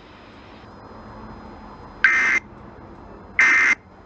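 Emergency Alert System end-of-message data bursts: two short, buzzy digital bursts, each about a third of a second long, about 1.3 s apart, starting about two seconds in. They are the repeated EOM code that closes an alert broadcast.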